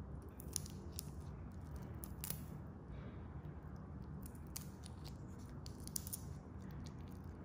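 Raw shrimp shell crackling and clicking as fingers peel it off, in quick irregular snaps with a few louder ones, over a low steady hum.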